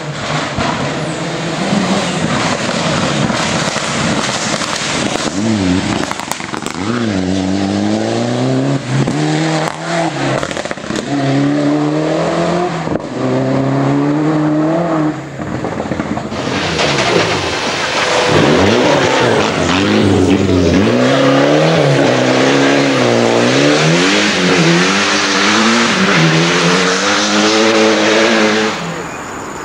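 Mitsubishi Lancer Evolution rally cars' turbocharged four-cylinder engines at full throttle, revving up through the gears in repeated rising pulls that drop back at each shift. The sound changes abruptly about halfway through and again near the end, as one car gives way to another.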